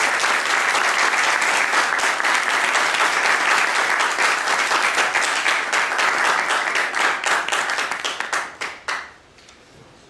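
Audience applauding: dense clapping that thins to a few scattered claps near the end and stops about a second before the end.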